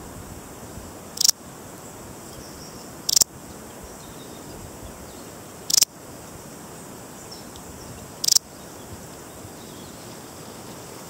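Balearic saddle bush-cricket (Parasteropleurus balearicus) stridulating: four short, high-pitched chirps, roughly every two to three seconds, over a faint steady background hiss.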